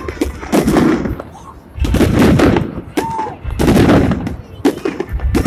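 Aerial fireworks display: shells going off in rapid bangs and crackles, in dense clusters about half a second, two seconds and four seconds in, with a short whistle about three seconds in.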